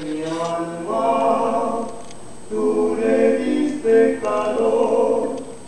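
Background music: a song with sung vocal phrases, each held for about a second with short breaks between them.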